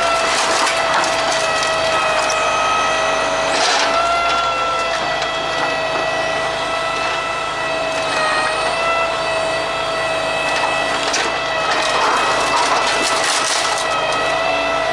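Wooden pallets cracking and splintering as a truck crane's hydraulic scrap grapple crushes them, with louder bursts of cracking about four seconds in and again near the end. Under it runs a steady high whine from the crane's hydraulics, which dips in pitch briefly twice.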